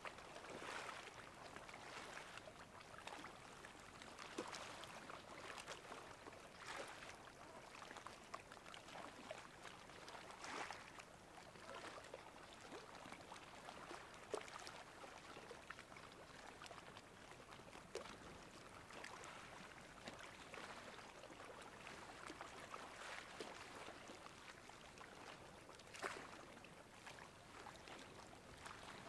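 Faint lapping of high-tide water, swelling and fading irregularly every couple of seconds, with a few sharper splashes.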